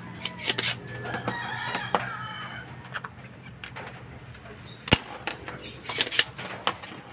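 A rooster crowing, one call of about a second and a half near the start, with several sharp clicks and taps around it.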